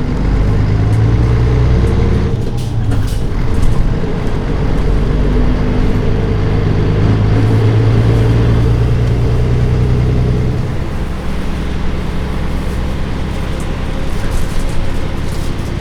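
Nissan Diesel Space Runner bus's PF6HT six-cylinder diesel engine pulling under load with a rising drone and a brief dip about two seconds in. It then pulls steadily again and eases off about eleven seconds in, leaving a lower running rumble.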